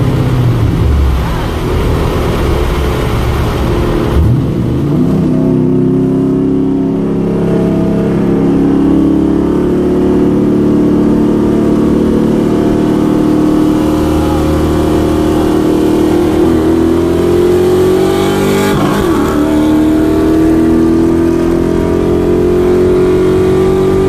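Car engine with Hooker headers accelerating hard from a rolling start, heard from inside the cabin: its pitch climbs steadily and drops back twice at gear shifts in the latter part.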